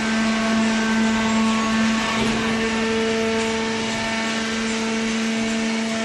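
Small horizontal hydraulic cardboard baler running: its electric motor and hydraulic pump give a steady hum with a whine over hiss.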